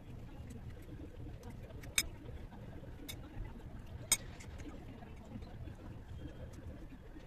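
Quiet kitchen handling sounds while a mango is being hollowed out: a few sharp clicks of a knife and utensil set down against a ceramic bowl, about two seconds apart, over a low steady hum.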